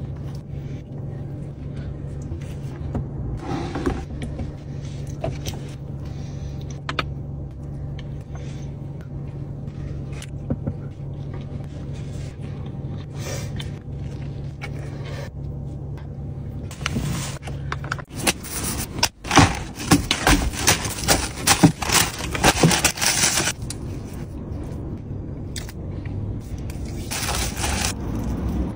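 Steady low hum of a car interior with small taps and rustles of food being handled. About two-thirds of the way through the hum stops, and several seconds of dense crackling and rustling follow, paper food wrapping handled while a pastry is torn.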